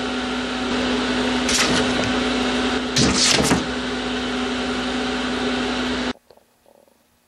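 Air-cooled argon ion laser's cooling fan running with a steady whirring hum, with a few brief hisses over it. It cuts off suddenly about six seconds in.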